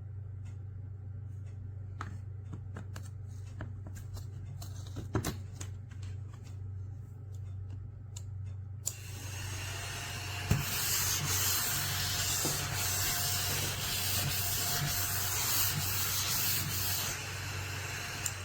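Light clicks and taps of handling, then a small battery-powered desktop vacuum cleaner switched on about nine seconds in. It runs with a steady whir and hiss, the loudest part easing off about a second before the end.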